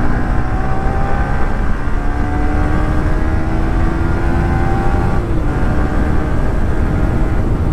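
Sport motorcycle engine pulling steadily while riding at speed, its note climbing slowly and dipping once about five seconds in, with wind rush on the microphone.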